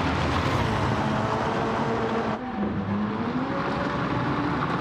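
Sports car or race car engine sound effect dubbed over a toy car: a steady engine note drifting up and down, with an abrupt change in the sound about two and a half seconds in.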